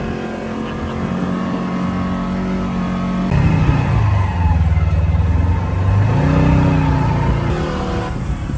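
Polaris RZR side-by-side's engine running while driving on sand, getting louder about three seconds in, its pitch dropping, then rising and falling again a few seconds later.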